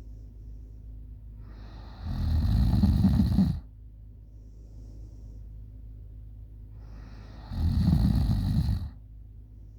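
A girl snoring loudly in deep sleep: two long snores about five and a half seconds apart, each lasting about a second and a half. A steady low hum runs between them.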